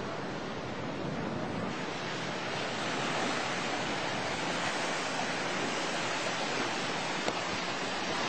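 Steady rushing of tsunami floodwater and surf, an even hiss that grows a little louder about two seconds in, with one brief click near the end.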